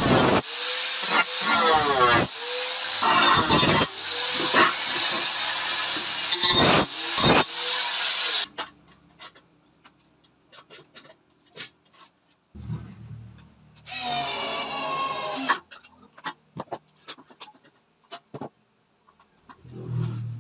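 Power drill run in several trigger bursts, each spinning up and winding down, for about the first eight seconds, followed by light tool clicks and knocks.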